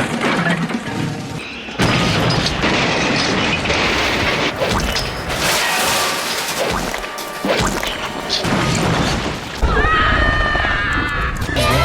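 A train crash: loud crashing and smashing with heavy booms as a small steam engine runs into trucks and a brake van, over dramatic background music.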